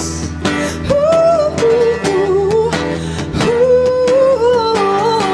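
A woman singing live to strummed acoustic guitar, holding long notes with vibrato.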